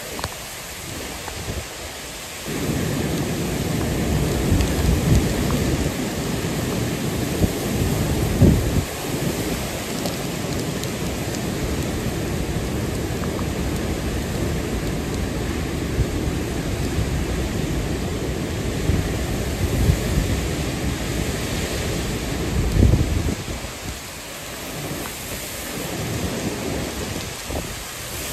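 Hurricane-force wind and torrential eyewall rain: a continuous rush of heavy rain with strong gusts buffeting the microphone in deep rumbles. The gusts build a couple of seconds in, peak about eight seconds in and again near twenty-three seconds, then ease slightly.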